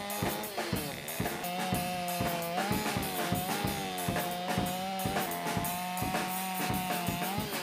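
Background music with a steady drum beat and a sustained, slightly wavering melodic line.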